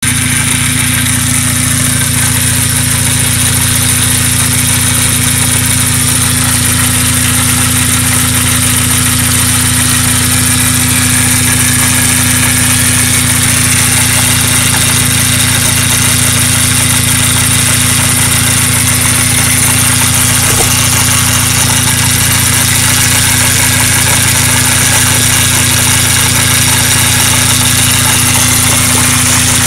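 Mazda RX-7 FD3S twin-rotor 13B rotary engine idling steadily, with a loud, constant hum and high whine from the engine bay, which a shop put down to a failing air pump.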